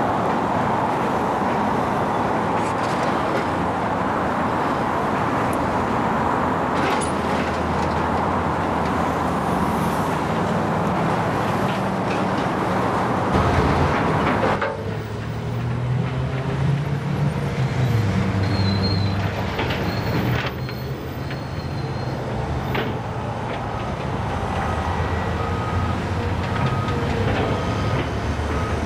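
A large engine runs under a dense, steady noise. About halfway through the noise drops off sharply, leaving a lower engine hum with a brief high squeal.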